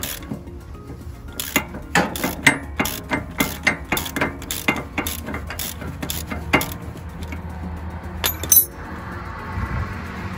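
A ratchet wrench clicking as it turns out the bolt of a broken flail on a slope mulcher's rotor, about three clicks a second, against the drag of a self-locking nut. The clicking stops after about six and a half seconds, with a couple of metallic clinks later as the loose parts come off, and background music fades in near the end.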